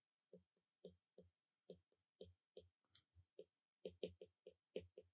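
Faint, irregular clicks of a stylus tip tapping on a tablet's glass screen during handwriting, sparse at first and coming closer together near the end.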